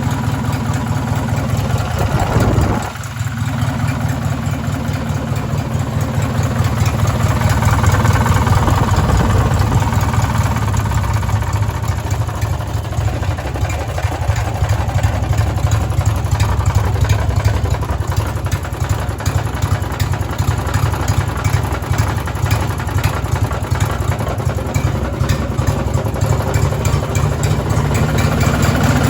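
Racing lawn mower's small engine running with a knock that the owner takes for rod knock. The sound drops off briefly about three seconds in, then picks up and runs on steadily.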